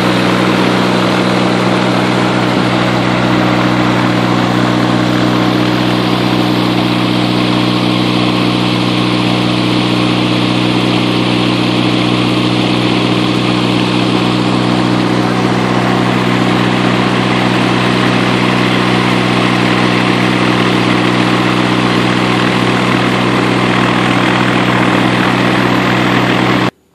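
Viking aircraft engine in a Rans S-19 running steadily on a ground run, turning its propeller. The sound cuts off suddenly near the end.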